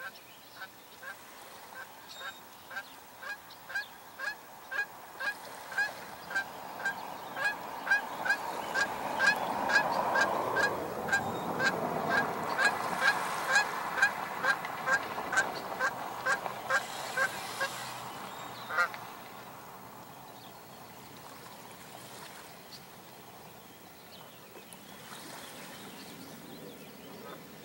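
A bird honking in a regular series, about two harsh honks a second. The honks grow louder toward the middle, ride over a swell of rushing noise, and stop about 19 seconds in.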